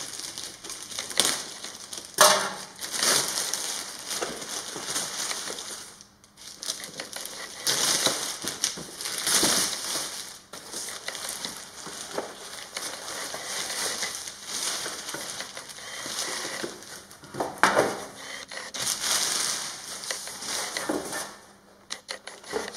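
Clear plastic packaging bag crinkling and rustling in uneven bursts as it is cut open and pulled off a foam model-plane fuselage, with a few sharper crackles and a short lull about six seconds in.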